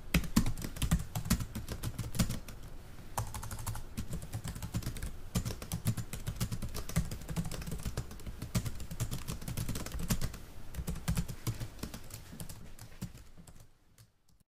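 Computer keyboard typing sound effect, used for on-screen text typed out letter by letter: quick, irregular key clicks that fade out near the end.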